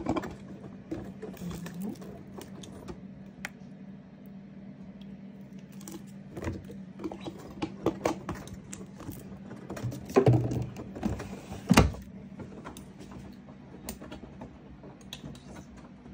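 Fabric softener bottle and plastic washing machine detergent drawer being handled, with scattered clicks and knocks and two loud knocks about ten and twelve seconds in. A steady low hum runs underneath.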